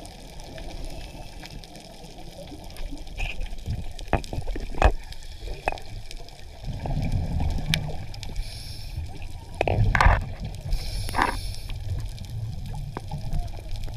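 Underwater sound picked up by a diver's camera: a muffled water rumble with stretches of gurgling, bubbling noise and a few sharp clicks.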